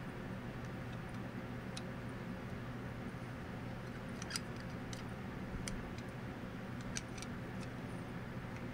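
Steady hiss and low hum of room tone, with a few faint, small clicks scattered through it from a die-cast metal toy jeep being handled and turned in the fingers.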